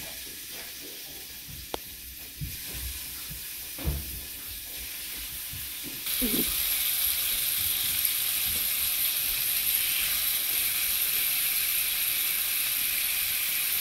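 Chunks of stingray frying in butter in a hot pan: a steady sizzle, with a few light knocks in the first few seconds as pieces go into the pan. The sizzle gets louder about six seconds in.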